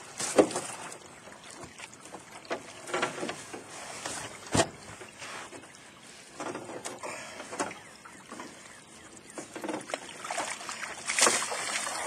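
Hoop fishing net being hauled up over the side of a small boat: scattered knocks and clunks of the net's hoops against the boat, with swishes of net and water. The water splashing and sloshing gets louder near the end as the net comes out of the water.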